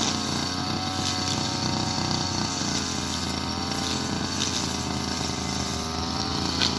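Petrol brush cutter (grass-cutting machine) engine running steadily at working speed, its pitch wavering slightly as it cuts, with a few brief sharp ticks.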